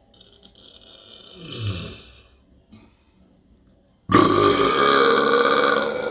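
A long, loud deliberate burp that starts suddenly about four seconds in and holds a steady pitch to the end. Before it comes a quieter hissy sound with a brief, low, falling grunt about a second and a half in.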